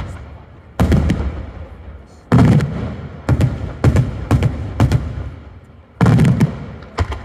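Daytime fireworks: aerial shells bursting overhead in a series of loud bangs at uneven intervals, with a quick run of four in the middle. Each bang trails off in a low rolling rumble.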